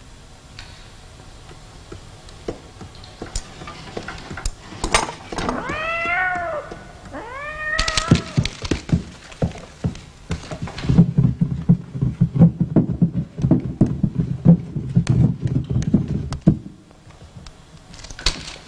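A cat meows twice, each call rising then falling in pitch, among scattered clicks and taps. Then comes several seconds of rapid, low knocking and thumping that stops suddenly.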